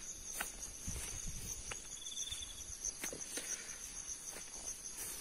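Steady, high-pitched insect chirring from crickets or similar insects in the grass, with a short higher trill about two seconds in and a few faint clicks.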